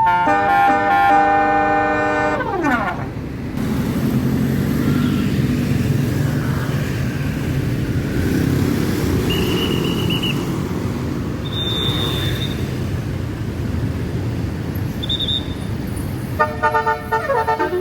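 Tour bus basuri musical horn playing a tune of several tones, its pitch sliding down as it dies away about three seconds in. After that a bus engine runs steadily, with a few short high whistle-like tones. The horn starts another tune about a second before the end.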